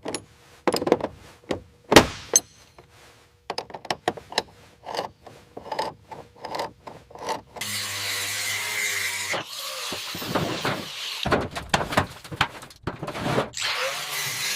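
Hand-tool work on a rusted car body: a run of sharp knocks and clunks, then long stretches of rough scraping or sanding broken by more knocks.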